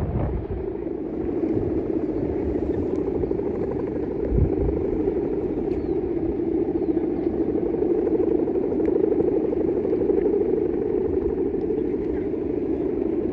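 Balinese bebean kite's guwangan, a bamboo bow hummer with a taut string, droning steadily in the wind with a buzzing, engine-like hum.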